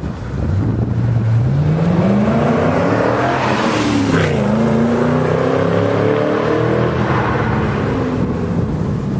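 2010 Mustang GT's 4.6L V8 running through a Magnaflow Competition Series stainless axle-back exhaust, accelerating hard. The engine pitch climbs for a few seconds, dips briefly about four seconds in, then climbs again and eases off near the end.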